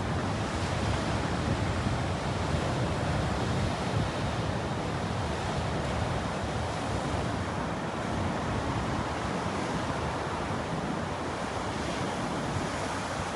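Ocean surf breaking and washing onto a beach as a steady rush, with wind buffeting the microphone.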